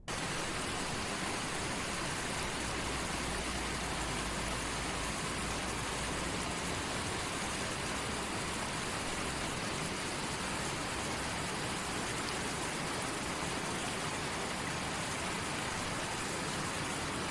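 Steady, dense water noise, an even hiss of falling or running water with no let-up.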